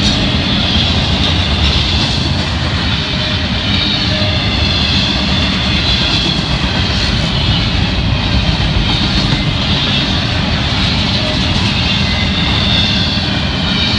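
Double-stack intermodal freight cars rolling past at speed: a steady, loud rumble and clatter of steel wheels on the rails, with a high wavering ring over it.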